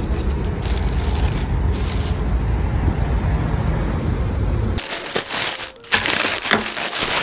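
A steady low outdoor rumble for the first few seconds. It cuts off abruptly, and a thin plastic carrier bag crinkles and rustles as it is pulled open.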